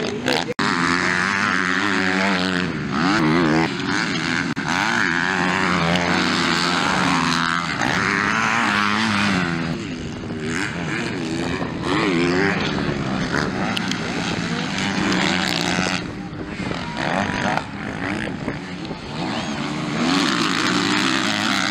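Motocross bikes' engines revving hard as they race on a dirt track. The pitch rises and falls repeatedly with throttle and gear changes.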